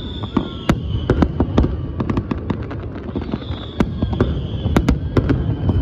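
Fireworks going off: a dense, irregular crackle of sharp bangs over a continuous low rumble, with a high whistle falling slightly in pitch near the start and again about halfway through.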